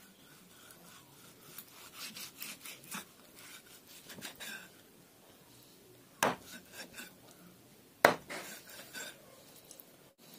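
A heavy dao chopper cutting raw pork on a wooden chopping block: small scraping, sawing strokes through the meat, then two sharp chops into the wood about two seconds apart in the second half.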